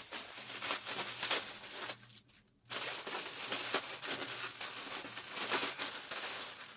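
Plastic poly mailer bag crinkling and rustling as it is handled and pulled open by hand, with a short pause a little after two seconds in.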